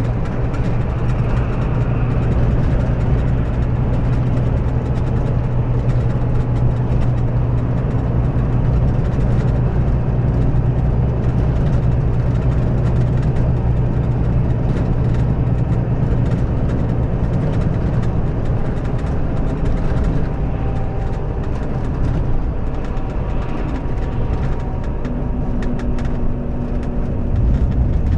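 Scania K400B coach's rear-mounted six-cylinder diesel engine running steadily under way, a constant deep drone with a hum of steady tones above it, easing slightly in the last third.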